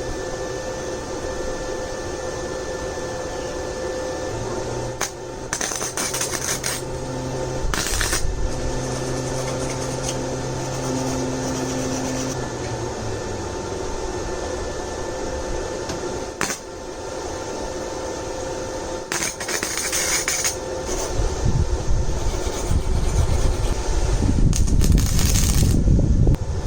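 Forney Easy Weld 140 FC-i flux-core wire welder welding a T-nut onto a steel bracket, in several short bursts of arc noise a few seconds apart, over a steady hum.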